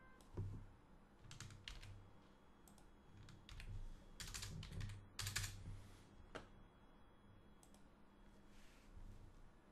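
Faint clatter of computer keyboard keys in several short runs of keystrokes, with a few single clicks near the end.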